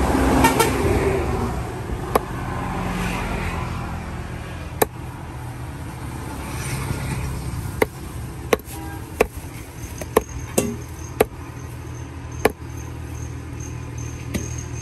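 Knife chopping a large catla fish on a cutting block: about ten sharp, irregularly spaced knocks over steady traffic noise. A vehicle passes loudly at the start.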